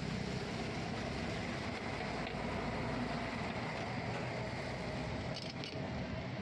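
Steady background din of an open-air street-food market: a continuous low rumble and hiss, with a couple of faint clinks about five and a half seconds in.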